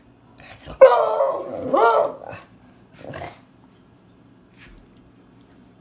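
Beagle howling: one loud howl of about a second and a half that dips and rises in pitch, then a short second yelp about a second later.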